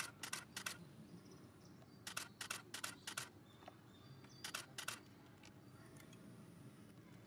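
Camera shutters firing in rapid bursts: three runs of sharp clicks, about three or four a second, near the start, around two seconds in and near five seconds in, over a low background hum.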